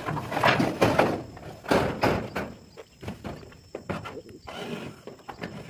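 Corrugated metal roofing sheet rattling and thudding as it is lowered and laid on a metal roof, loudest in the first two and a half seconds, followed by a few lighter knocks on the sheeting.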